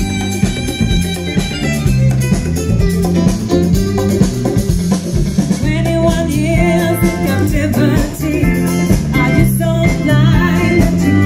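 Live band playing: electric guitars, bass and drum kit, with a woman singing over it in the second half.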